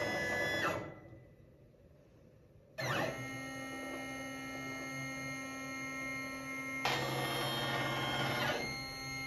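Stepper motors of a Langmuir Crossfire CNC plasma table whining as they drive the gantry and torch through a dry run, with no plasma arc. The whine stops for about two seconds about a second in, then starts again and changes pitch twice as the moves change.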